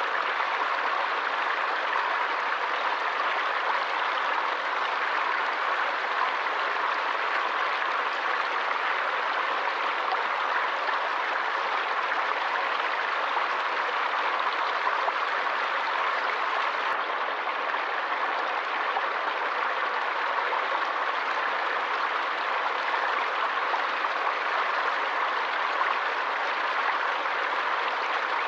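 Forest stream flowing steadily, an even, unbroken rush of water.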